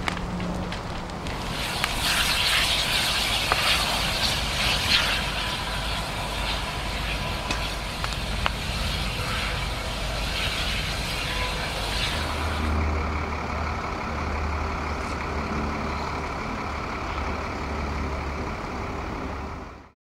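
Burning house timbers crackling and hissing, with scattered sharp pops. After about twelve seconds the hiss drops away and a low, steady heavy-vehicle engine rumble takes over. The sound cuts off at the very end.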